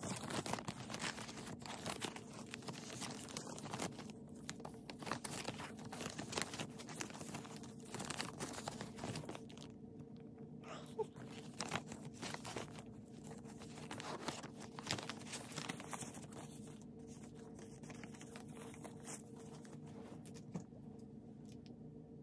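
Paper dollar bills handled and counted by hand: many short, crisp rustles and snaps of banknotes, thinning out toward the end, over a faint steady hum.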